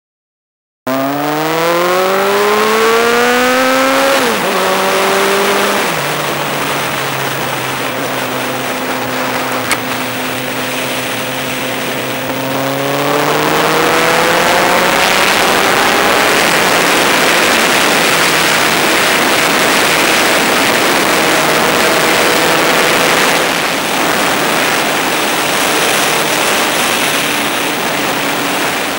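Motorcycle engine accelerating hard through the gears under a steady rush of wind noise. The revs climb for about three seconds, drop at two quick gear changes, hold at a steady cruise, climb again midway and settle, with one more small drop near the end.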